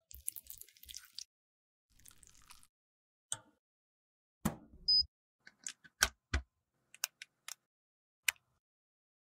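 A razor blade scraping lipstick off a small metal pan in two short strokes, then a string of separate sharp clicks and knocks, with a brief high beep about five seconds in. The clicks are loudest about six seconds in.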